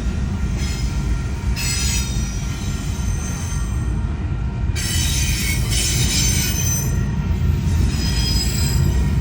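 Long train rolling past at close range: a steady heavy rumble of wheels on rail, with high-pitched wheel squeal rising and fading several times, loudest about five to six seconds in.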